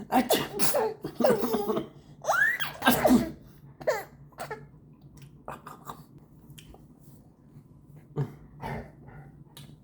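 A one-year-old boy pretending to sneeze: a run of short breathy bursts and laughter, with one squeal that rises and falls, in the first three seconds. Then mostly quiet apart from a few short huffs, two of them near the end.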